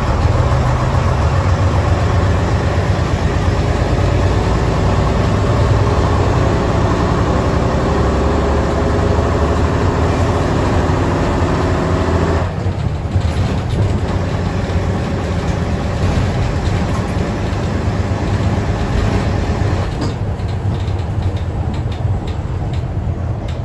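Leyland Titan OPD2/1 bus's six-cylinder diesel engine heard from inside the saloon, pulling under load with a slowly rising note, then falling away abruptly about halfway through and running more quietly near the end.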